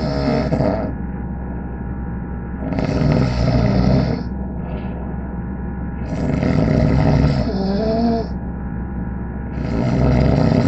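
A person snoring, each snore lasting one to two seconds and coming about every three and a half seconds: the tail of one at the start, then three full snores. A steady electrical hum runs underneath.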